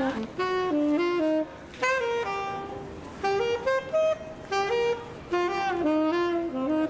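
Tenor saxophone playing a solo melody, moving note by note in short phrases with brief breaths between them.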